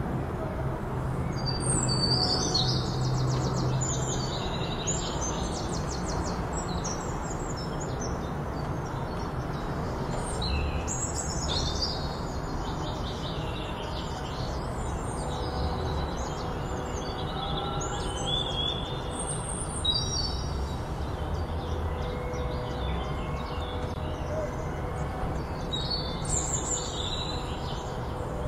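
Small birds chirping, with quick trills in several short spells, over steady background noise.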